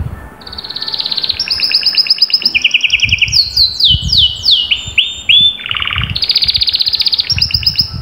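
Domestic canary singing one long song of fast rolling trills, each a rapidly repeated note. Around the middle comes a run of falling, sweeping notes and a lower buzzy phrase, and the song ends on another fast trill.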